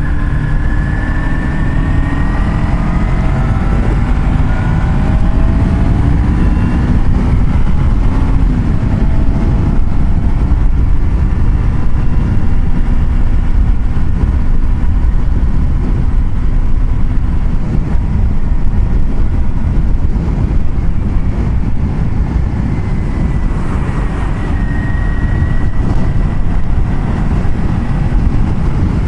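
A car driving on a highway, heard from inside: steady road and engine noise, with the engine's pitch climbing slowly over the first few seconds.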